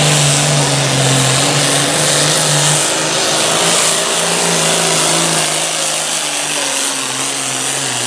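Turbocharged John Deere Super Farm pulling tractor's diesel engine at full throttle, hauling a weight-transfer sled: a loud, steady drone whose pitch drops a little about halfway through as the sled's load builds.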